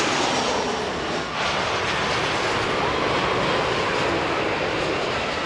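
Jet airliner flying low overhead on its landing approach, its engines a loud, steady rush of noise.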